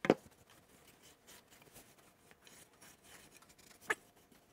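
Fine #0000 steel wool rubbed by hand over a sanded wooden surface along the grain, a faint scratchy rustle. A sharp knock just after the start and a smaller one near the end.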